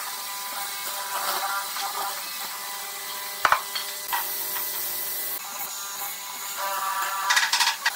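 Hollow-chisel mortiser running and plunging its chisel into wood in repeated strokes, with a sharp knock about three and a half seconds in and a louder cutting burst near the end.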